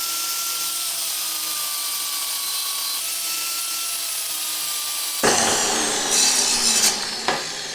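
Power tool cutting a length of threaded steel rod. A steady run with a faint, slowly falling motor whine, then about five seconds in the cut turns suddenly louder and harsher before easing off near the end.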